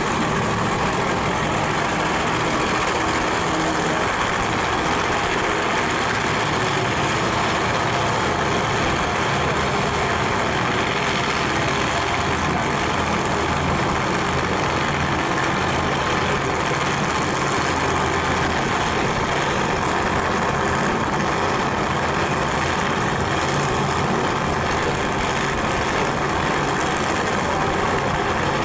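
Drag race car engines idling steadily, with no revving or launch.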